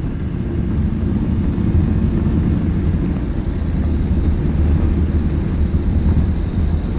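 Racing kart's two-stroke engine running steadily at speed, heard onboard.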